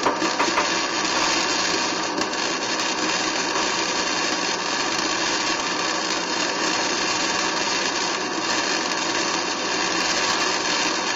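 Hand-held electric power tool running steadily under load on a steel frame rivet of a 1946 Ford truck, working to remove the factory rivet.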